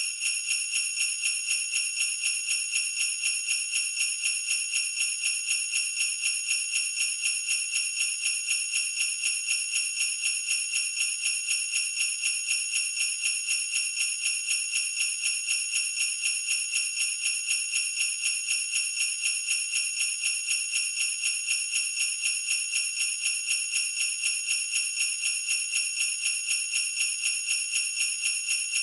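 Sleigh bells (jingle bells) shaken in a steady, even rhythm at 120 beats per minute, a bright high jingle with about four shakes a second.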